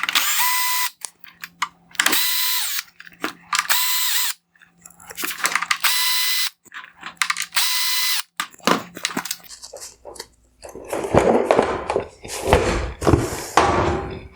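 A power screwdriver runs in five short bursts of steady whine, each about half a second to a second long, backing out the Phillips head screws that hold a headlight's upper mounting bracket. After that come irregular knocking and clattering of parts being handled, loudest near the end.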